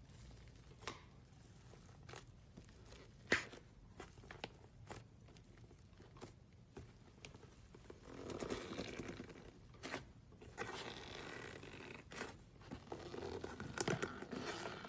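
Slime being handled: scattered sticky clicks and pops, with two longer stretches of crackling, tearing sounds, one just past the middle and one near the end.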